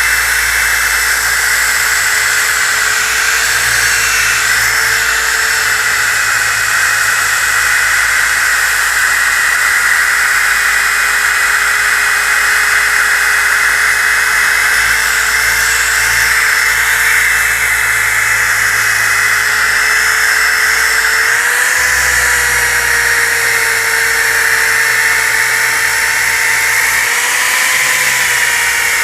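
DeWalt DWE6401DS disc sander running steadily while sanding a wooden board, a motor whine over the hiss of abrasive on wood. The whine's pitch rises briefly twice near the end as the load on the pad changes.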